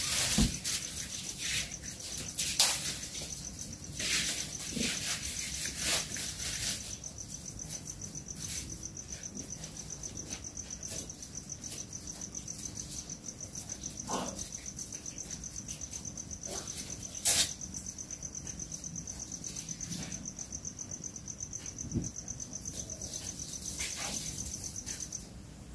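A steady, high-pitched insect trill, cricket-like, running on with a fast even pulse and stopping just before the end. A few soft knocks fall here and there, with one sharper knock about two-thirds of the way through.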